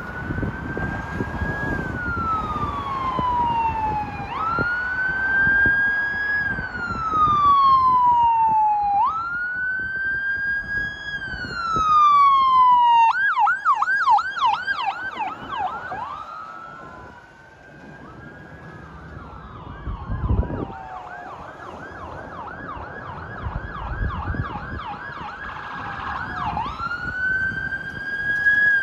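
Ambulance electronic sirens on medic units running to hospital: a wail that rises quickly and falls slowly, about every four seconds, switching to a rapid yelp about halfway through, then a quicker, fainter warble, and back to the wail near the end. Vehicle engine and road noise run underneath.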